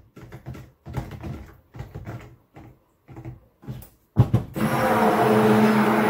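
Stainless stick blender being moved by hand through thick soap batter in a plastic tub, its head knocking and scraping against the tub in short irregular strokes; about four seconds in the blender's motor switches on and runs steadily with a low hum, mixing the batter.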